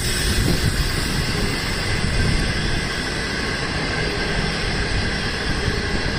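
Green Chinese passenger coaches rolling past: steady rumble and rattle of steel wheels on the rails, with a faint steady high tone over it.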